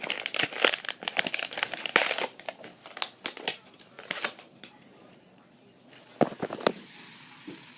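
Plastic packaging crinkling and rustling as it is handled. The crackling is dense for the first two seconds or so, then sparser, with a couple of louder crackles near the end.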